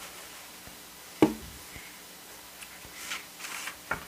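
A cardboard album box and its outer sleeve being handled on a wooden table. There is a sharp knock about a second in, then a stretch of cardboard sliding and rubbing as the sleeve comes off, and a light tap near the end.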